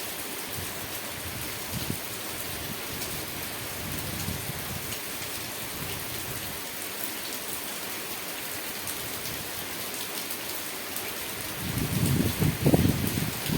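Steady rain falling, an even hiss flecked with fine pattering drops. Near the end a low rumble comes in and becomes the loudest part.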